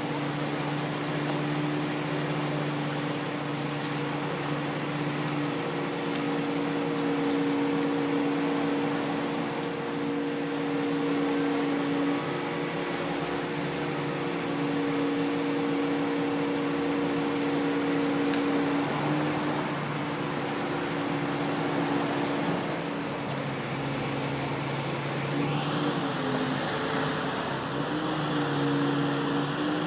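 Crane engine running steadily under a working load, its hum shifting in pitch and level now and then. About 25 seconds in, a higher whine rises and holds.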